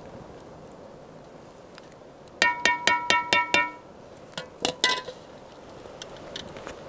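A metal mesh skimmer knocked rapidly against a metal cooking pan, six ringing clinks in about a second and a half, then three more clinks a moment later.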